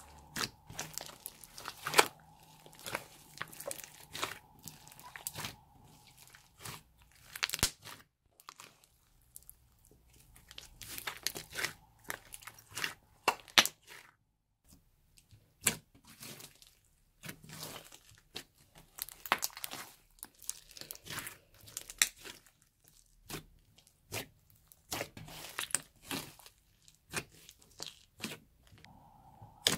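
A large mass of glossy slime mixed with small beads, kneaded and stretched by hand: a run of irregular sticky pops and crackles as it is squeezed and pulled apart, with brief pauses.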